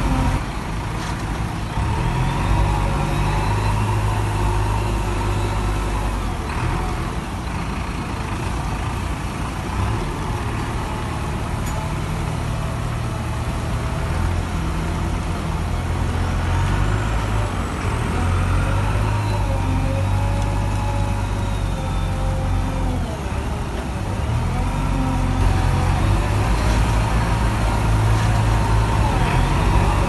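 JCB 3DX backhoe loader's diesel engine running hard as it works, its note rising and falling with the load, with a whine that glides up and down in pitch.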